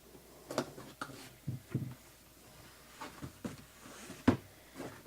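Handling noise on a table: scattered light knocks, taps and rustles, with one sharp click about four seconds in.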